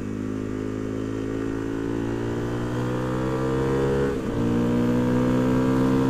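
Motorcycle engine running at road speed, about 95 km/h, picked up by a helmet-mounted camera mic. The engine note climbs slowly, dips briefly about four seconds in, then holds steady, with little wind noise over it.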